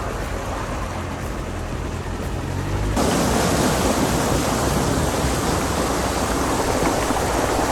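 Steady rush of a swollen river, with a low engine hum underneath; about three seconds in it cuts to a louder, brighter rush of water.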